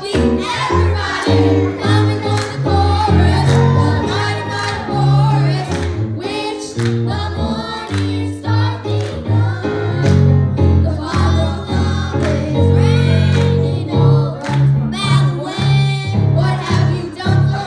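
Gospel music with a choir singing over a band with a strong bass line.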